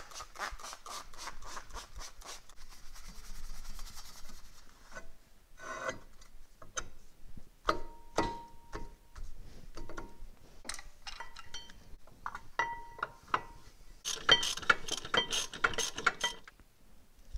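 Hand cleaning of a car's rear brake hub: runs of quick, rhythmic scrubbing strokes at the start and again near the end, with scattered metal clinks and short ringing taps of tools and parts in between.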